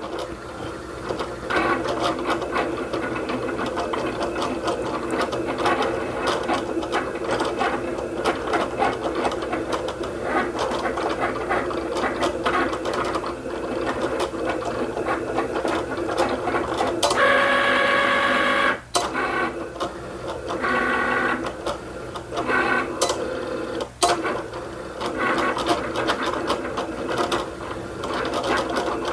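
Cricut Explorer Air 2 cutting machine running a cut, its motors whirring steadily as the mat feeds and the blade carriage travels. It makes a louder, higher-pitched run a little past halfway, with short pauses between moves. This is a second pass to kiss-cut a laminated sticker sheet.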